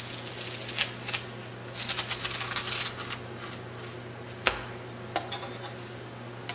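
The corner of a thin metal ruler scratching along the plastic skin of fanfold foam insulation board, piercing the top layer to score a cut line. A few sharp clicks come in between, the loudest about four and a half seconds in.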